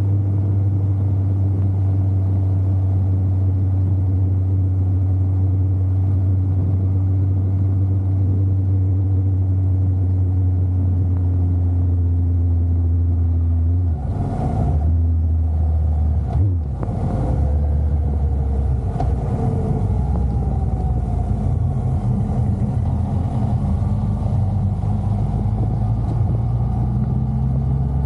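Motorcycle engine running at a steady cruise. Around the middle the note breaks twice and settles at a new pitch, then it rises slowly near the end.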